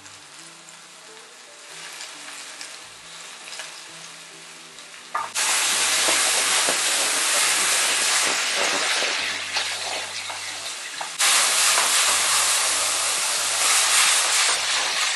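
Chanterelle mushrooms sizzling as they are seared over high heat in a stainless steel sauté pan, stirred with a wooden spatula. The sizzle is quiet at first, turns loud suddenly about five seconds in, eases a little, then surges again about eleven seconds in.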